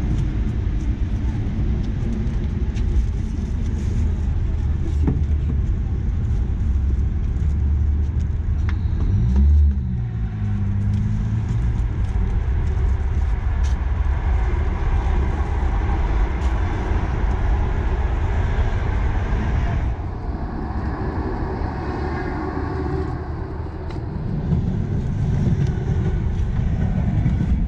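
Ataman A09304 minibus's diesel engine running steadily, with a brief rise and fall in engine speed about ten seconds in.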